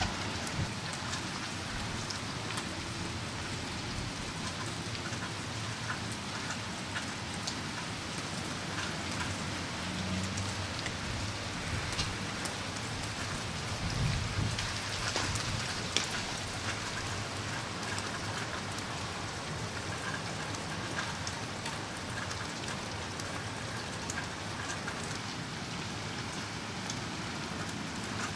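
Freezing rain falling steadily in an ice storm, a continuous hiss dotted with sharp little ticks of drops striking hard, icy surfaces. A brief low rumble comes about halfway through.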